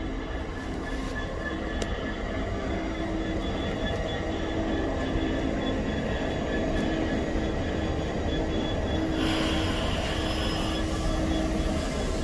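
Class 66 diesel-electric locomotive, its two-stroke V12 EMD engine droning steadily, passing with a train of engineers' wagons. The sound grows slowly louder as it goes by, and a high hiss joins in about nine seconds in.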